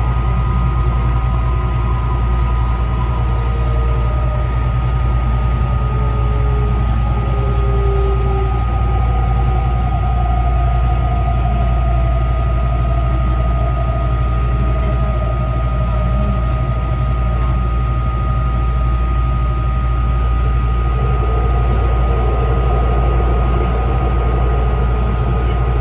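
Metro train running between stations, heard from inside: a steady low rumble of wheels on rail, a constant high tone, and traction-motor whine sliding slowly in pitch as the speed changes.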